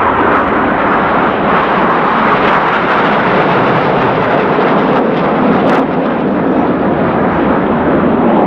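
Steady, loud jet noise from a formation of nine BAE Hawk T1 jet trainers passing in close formation, their Rolls-Royce Turbomeca Adour turbofans running with no rise or fall.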